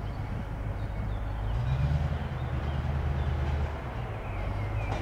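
Diesel shunting locomotive's engine running as it creeps along the track, a low steady throb that grows louder a little under two seconds in and eases back near the four-second mark. Faint bird chirps above it.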